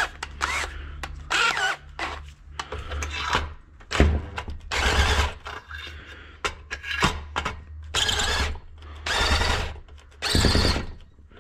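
An 18 V cordless drill-driver runs in a series of short bursts as it undoes the exhaust muffler bolts on a Husqvarna 61 chainsaw. Its battery is running flat.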